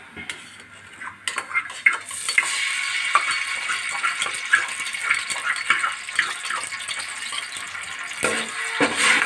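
Ginger-garlic paste sizzling as it goes into hot oil and butter in a steel pot, the hiss setting in about two seconds in and running on steadily. A metal spoon clicks and scrapes against the bowl and the pot as the paste is scraped in and stirred.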